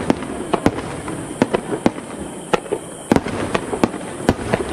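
Aerial fireworks shells bursting in quick succession: sharp bangs at irregular intervals, several a second, over a continuous wash of sound.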